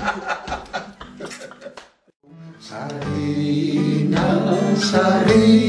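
Chatter fades out, and after a short break about two seconds in, an acoustic guitar starts being strummed with a man singing along.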